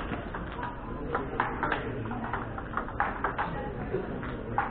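Table tennis rally: the plastic ball clicking off the paddles and bouncing on the table, a string of sharp ticks coming in short runs.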